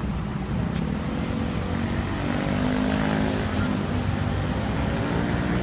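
A motor vehicle's engine running close by, its faint pitch dipping and rising and a little louder in the second half, over a steady low rumble.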